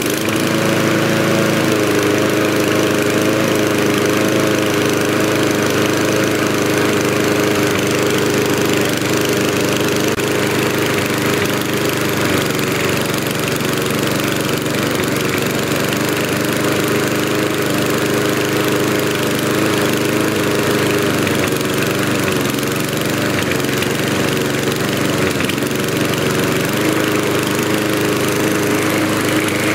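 Mountfield SP454 lawnmower's SV150 petrol engine running steadily at an even, fast speed, its pitch shifting slightly about half a second in. The owner judges it to be running a little bit quick.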